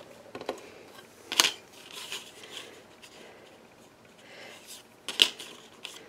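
Light handling of cardstock and a thin cutting die being positioned on it: paper sliding and rustling, with a few sharp little taps and clicks, the loudest about a second and a half in and again near the end.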